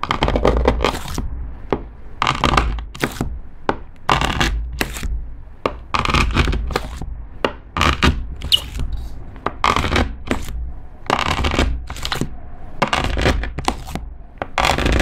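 A kitchen knife cutting again and again through a thick ball of clear slime colored with eyeshadow, pressed down onto a wooden cutting board. A run of short cutting strokes, often in quick pairs or threes, each with a low knock of the blade meeting the board.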